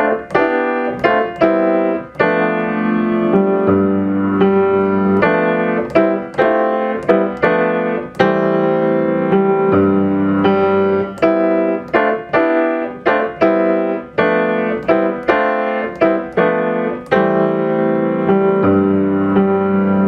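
Acoustic grand piano playing a moderate-tempo piece with both hands, with sustained chords over held bass notes. A metronome clicks the beat at 80 beats a minute.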